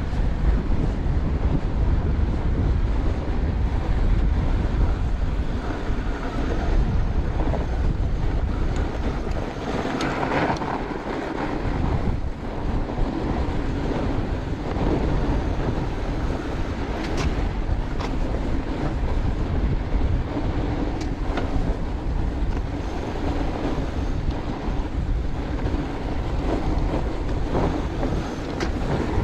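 Fat-tire bike rolling over packed snow, its tyre noise mixed with steady wind buffeting the camera microphone, with a few sharp clicks along the way.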